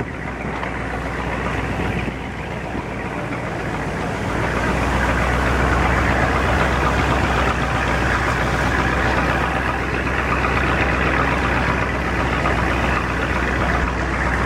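Long boat's engine running steadily, a low hum that grows louder about four seconds in, with water rushing and splashing along the wooden hull.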